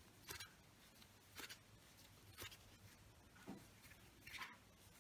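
Faint scratchy rasps about once a second: a crochet hook pulling yarn through as single crochet stitches are worked one after another.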